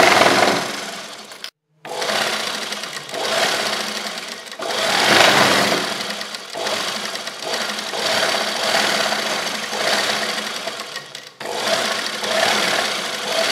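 Sewing machine running as fabric is stitched through it, the run swelling and easing in stretches, with brief breaks about a second and a half in and again near the end.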